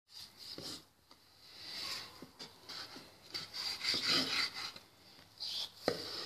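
A knife sawing through raw pork fat and rind on a wooden cutting board: irregular rasping, scraping strokes, with a sharp knock near the end.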